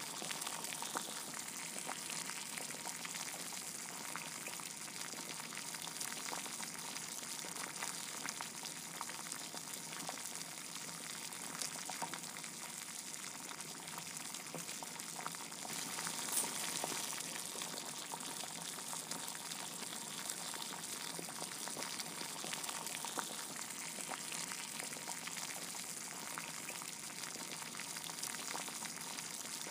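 Steady sizzling and crackling of food frying in a pan, with many small pops scattered through it.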